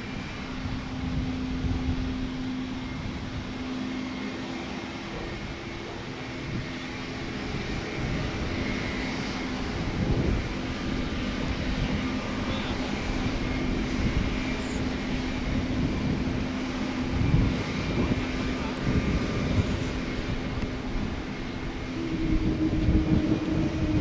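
Embraer E195-E2's Pratt & Whitney geared turbofan engines running at taxi power: a steady jet whine and rumble. It grows louder near the end as the airliner passes close, and a higher tone comes in.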